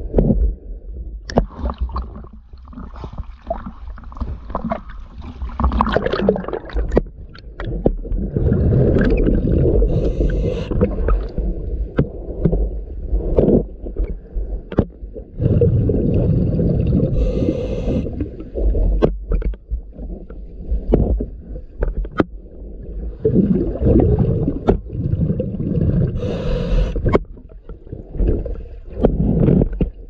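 Underwater, a scuba diver breathing through a regulator, heard as gurgling rushes of exhaled bubbles that last a few seconds and come back about every seven or eight seconds. Sharp clicks and knocks sound throughout.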